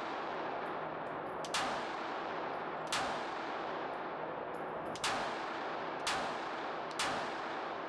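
Five 9mm pistol shots from a Glock 19X fitted with a Radian Ramjet Afterburner compensator, fired at an uneven pace about one to two seconds apart. Each shot is a sharp crack followed by a short echo off the walls of an indoor range.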